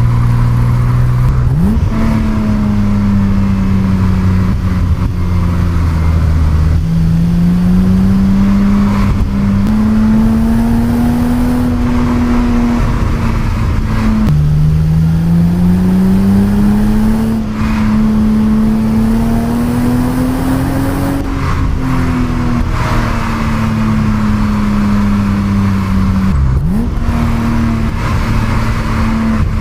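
1988 BMW 325i E30's stock 2.5-litre straight-six engine under way, its note climbing and falling with road speed through the gears. A sharp rev blip comes about two seconds in and again near the end, typical of downshifts. A sudden drop in pitch midway marks an upshift.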